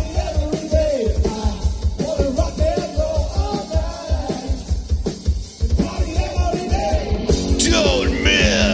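Rock music playing: a song with a singing voice over a steady drum beat.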